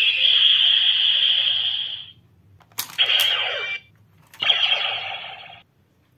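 Recast DX Decadriver toy transformation belt playing its electronic henshin sound effects through its small speaker: a steady, high, alarm-like standby tone that stops about two seconds in. Then come sharp plastic clicks as the buckle is worked, each followed by a short burst of electronic effect sound.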